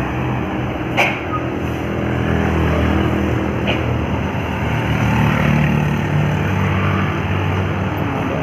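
Large road vehicle's engine running as it passes on a climb, its low drone strongest about halfway through, with a single sharp click about a second in.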